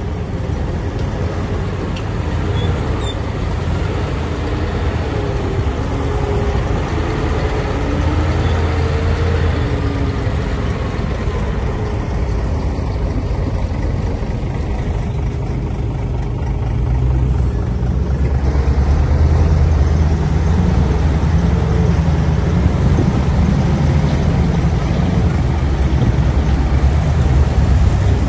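Diesel engines of heavy earthmoving machinery running hard: a steady low rumble with a wavering higher whine over the first half, growing louder about two-thirds of the way through.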